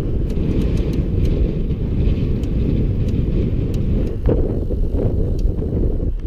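Heavy wind rush buffeting the microphone of a bicycle coasting fast downhill, a steady low rumble with a few faint light ticks.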